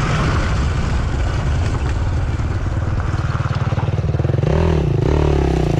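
Enduro dirt bike engine running hard under a steady rush of wind and trail noise. About four and a half seconds in it revs up and down in a few clear sweeps as the bike throws up dust on the climb.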